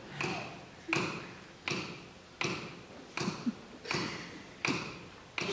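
A pen tapping on a table in a slow, steady beat, about eight sharp taps at roughly one every three-quarters of a second, each ringing briefly in the hall.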